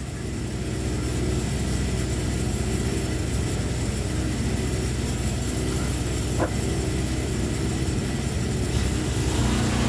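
Small petrol engine running steadily, with a brief tick about six and a half seconds in.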